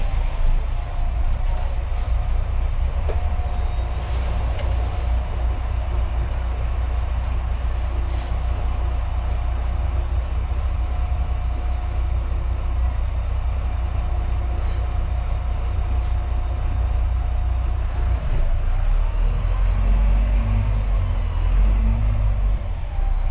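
A double-decker bus in motion: a steady low rumble of the drivetrain with road noise, and a thin steady whine that stops about three quarters of the way through, after which the engine tone shifts.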